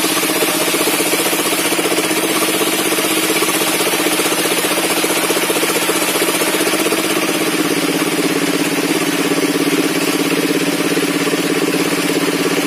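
Sawmill circular saw table running steadily: a constant engine-like hum with a fast even pulse and a high hiss, with no pauses or changes.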